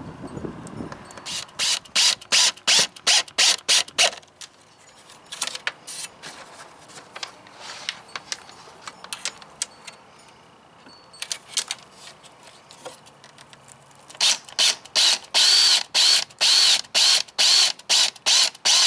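Cordless 20 V drill driving self-tapping screws into the aluminium solar-panel frame, its clutch clicking rapidly, about five clicks a second, as the screws seat. The clicking comes in two long runs, one early and one near the end, with quieter scattered clicks between.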